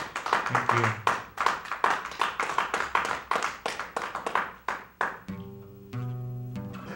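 Applause from a few people: sharp, uneven hand claps that stop about five seconds in. Then held low bass notes open the next song.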